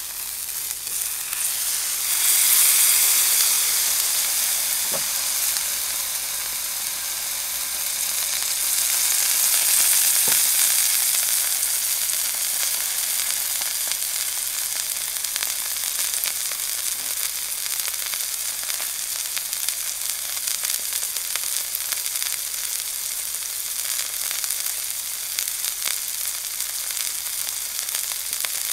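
Elk steak sizzling in hot fat in an enamelled frying pan, searing on its edge. The sizzle is steady, swelling louder about two seconds in and again around ten seconds in.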